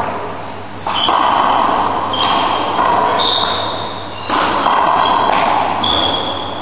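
Handball rally: the ball smacked by hand and striking the walls and floor, about six sharp cracks roughly a second apart, each echoing around the enclosed court.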